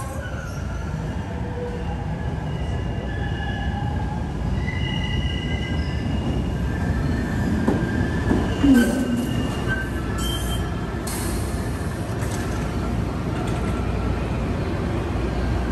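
MBTA Green Line Type 7 light-rail train pulling into a station and slowing to a stop, its wheels squealing in thin high tones over a steady low rumble. A few short hisses come about ten seconds in.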